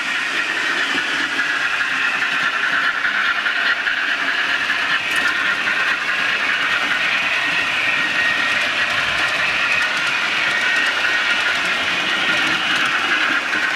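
Model railway train running on the layout track: a steady whir of wheels on rail and motor, swelling in the first second and then holding even.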